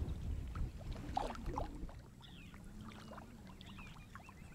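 Water splashing and dripping around a kayak being pushed through very shallow marsh water, with a low rumble in the first two seconds. After that it turns quieter, with a few faint high chirps.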